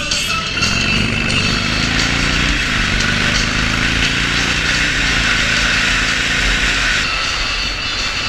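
Harley-Davidson Iron 883's air-cooled V-twin accelerating through the gears, its pitch climbing and dropping at two upshifts. Wind rushes over the microphone.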